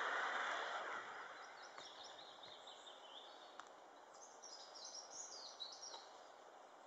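Enola Gaye wire-pull smoke grenade hissing as it vents white smoke, fading away within the first second or two. Faint bird chirps follow.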